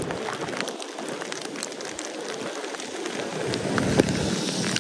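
Heavy rain falling, with many close raindrops ticking sharply over the steady hiss; a low rumble builds near the end.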